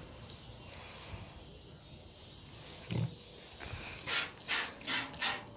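Plastic trigger spray bottle squirting water in a quick run of short squirts near the end, its nozzle set to a narrow high-pressure jet. A dull thump comes about three seconds in.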